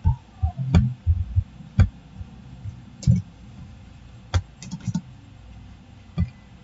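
Computer mouse and keyboard clicks while text is copied and pasted: about eight sharp, irregularly spaced clicks with a few duller knocks among them.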